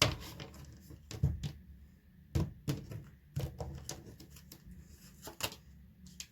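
Tarot cards being handled and laid down: a series of separate slaps and taps, about six over several seconds, loudest at the start.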